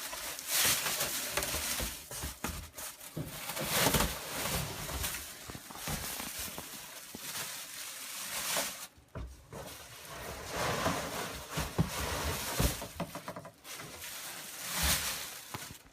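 Plastic-bagged bundles of flexible tubs being pulled out of a cardboard box: irregular plastic rustling and crinkling, with scraping and a few knocks.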